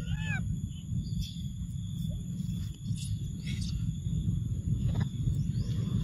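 A steady low rumble with a thin, steady high insect-like drone above it. Over it come a few short high squeaks: a cluster of arching chirps right at the start, then single brief calls around three and five seconds in.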